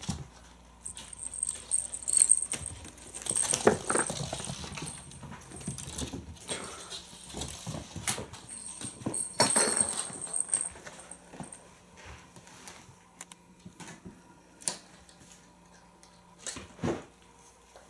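Kittens playing on a wooden floor: scattered taps, knocks and scrabbling, busiest in the first half. A small bell jingles in two bursts, near the start and again about halfway through.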